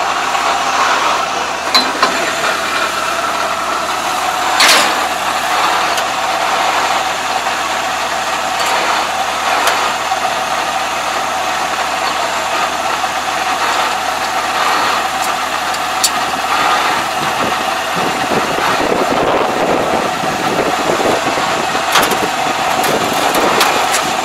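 Combine harvester engine running steadily. A few sharp metallic clicks and knocks stand out, the loudest about five seconds in, as the cutter section's parts and cover panel are handled.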